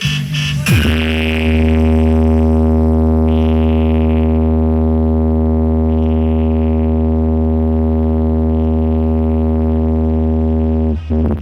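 A DJ sound system playing one long, unchanging synthesizer drone with heavy bass underneath, a bass-test tone. After a short falling sweep it holds steady for about ten seconds and cuts off just before the end.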